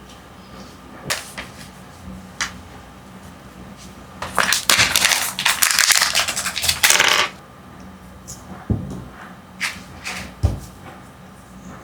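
Plastic packaging from a Kinder Joy toy being crinkled and torn open in a dense burst of about three seconds, between scattered clicks and taps as small plastic toy pieces and the capsule are handled and set down.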